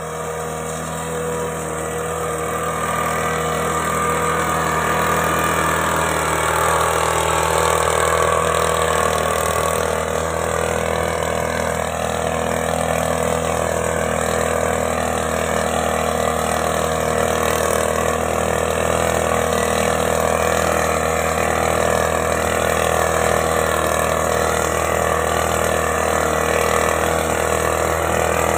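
Backpack engine-powered blower running steadily at working speed as it broadcasts granular fertilizer over a rice paddy, its pitch wavering slightly.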